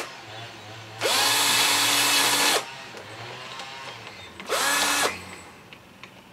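Cordless drill-driver spinning screws out of a small plastic cover on an outboard motor: a run of about a second and a half, then a shorter burst near the end, each starting with a rising whine as the motor spins up.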